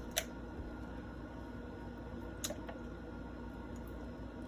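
Steady low room hum broken by two short, sharp clicks about two seconds apart.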